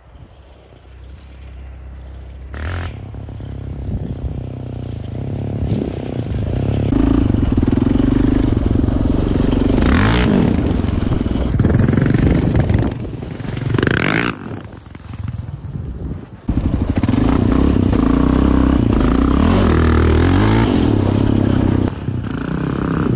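Quad (ATV) engine running and revving, swelling in pitch and loudness over the first several seconds, then staying loud with repeated rises and falls.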